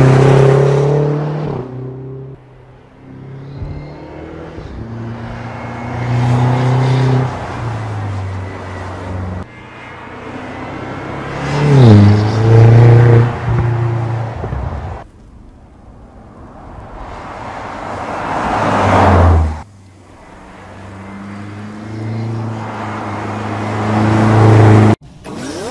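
BMW X5 M's twin-turbo 4.4-litre V8 exhaust in several hard acceleration runs. Each one rises in pitch and loudness and then cuts off abruptly.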